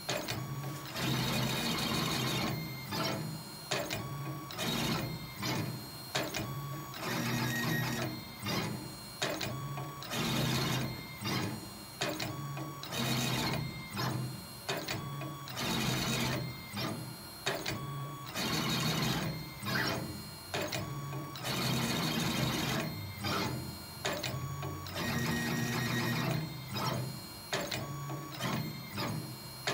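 Stepper motors of a Crossfire Pro CNC table running in short stop-start moves as the gantry drives a plate-marking scriber over steel plate. The whine jumps to a new pitch with each move, like a printer head.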